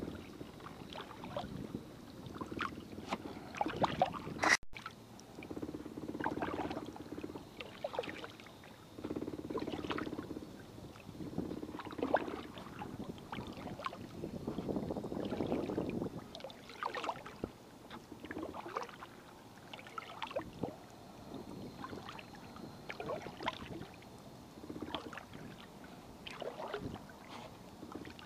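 Kayak paddle strokes through calm water: the blades dip and pull on alternating sides, with drips and small splashes, a stroke about every one and a half to two seconds. The sound drops out for an instant about four and a half seconds in.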